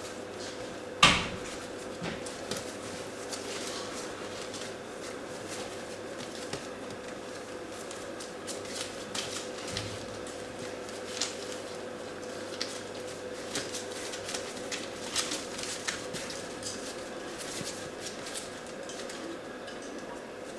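Schipperke puppies scrabbling and tussling on newspaper: scattered rustles of paper and small clicks of claws, with one sharp knock about a second in. A steady hum runs underneath.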